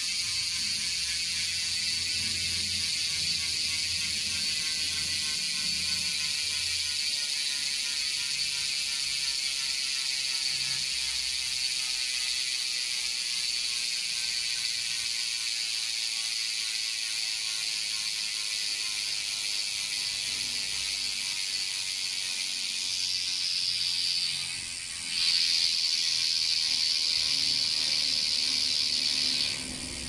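Speedone Torpedo rear hub freewheeling as the rear wheel spins, its pawls giving a fast, high-pitched ratcheting buzz that slowly drops in pitch as the wheel slows. Near the end the buzz dips briefly, comes back louder, then cuts off suddenly.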